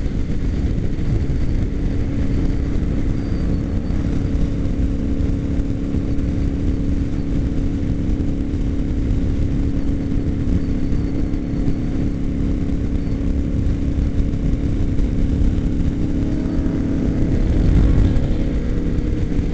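Motorcycle engine running steadily at freeway cruising speed, heard from on the bike, under heavy wind rumble buffeting the microphone; a little louder near the end.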